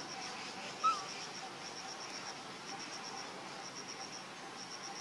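Insect chirping in a steady rhythm: short trains of about six quick, high-pitched pulses, one train about every second. About a second in, a single brief chirp that rises and falls is the loudest sound.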